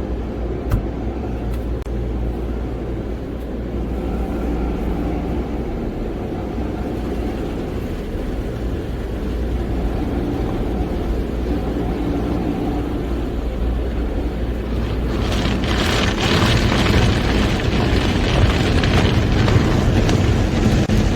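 Automatic drive-through car wash machinery heard from inside the car: a steady low rumble, joined about fifteen seconds in by a loud rushing hiss as the wash gets louder.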